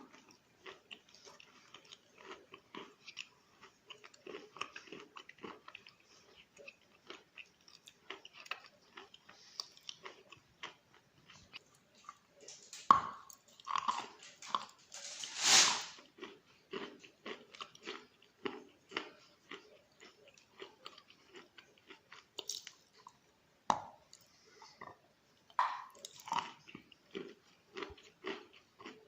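Close-up chewing of wet Khrapovsky chalk: a steady run of small, moist crunches, with a few louder bites about halfway through.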